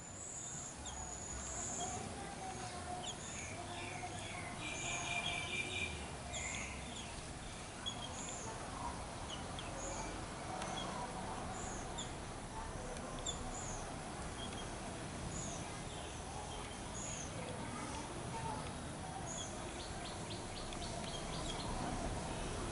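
Birds chirping: short high calls repeated every second or two, with a rapid buzzy trill about five seconds in and quick clicking trills near the end, over steady outdoor background noise.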